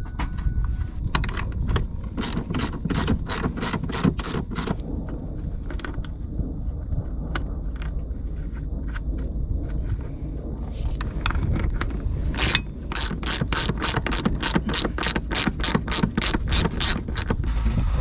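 Hand ratchet wrench clicking in quick even runs of about four clicks a second, in several spells, as bolts are turned out.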